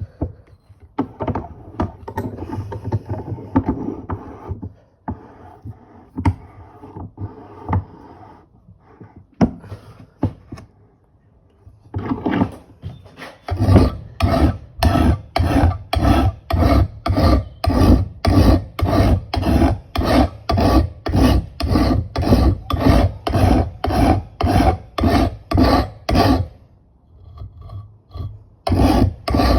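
A flat file sharpening the edge of an old axe head. It starts with slower, uneven scraping and a few knocks, then settles into steady rhythmic strokes at about two a second. The strokes stop briefly near the end and then start again.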